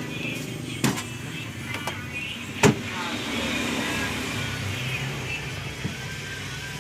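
Single-door Sharp refrigerator's compressor running with a steady hum during a cooling test of a newly fitted evaporator, with two sharp clicks, the second louder, in the first three seconds.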